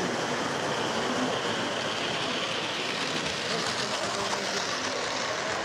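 O gauge model train running on three-rail track, a steady whirr of the locomotive's electric motor and wheels on the rails as it comes round the curve and passes close by.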